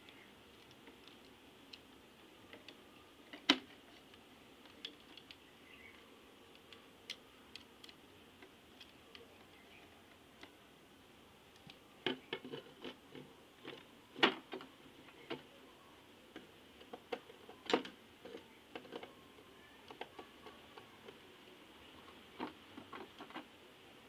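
Scattered small clicks and knocks from a plastic two-gang switch plate and a screwdriver being handled during wiring work, a few sharper knocks among them and a busier run of taps from about halfway through.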